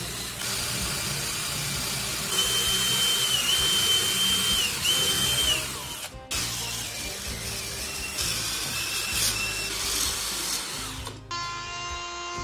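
DeWalt cordless drill whining as it bores into particleboard, its pitch dipping under load, in two runs, over background music. About eleven seconds in, the steady hum of an electric router motor takes over.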